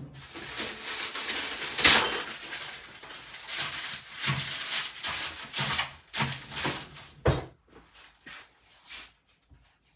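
Kitchen clatter of dishes and utensils being handled at the counter, with a loud knock about two seconds in and another sharp one near the end before it goes quiet.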